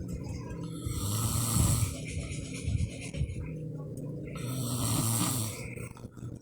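A man snoring in sleep: two rattling snoring breaths, about three seconds apart.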